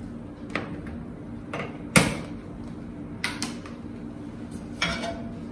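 Several sharp clicks as a gas stove burner is lit with a handheld spark lighter; the loudest click comes about two seconds in. A steady low hum runs underneath.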